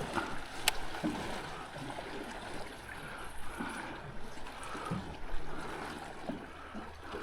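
Water lapping and trickling against a small boat's hull, with a sharp click just under a second in and a few softer knocks.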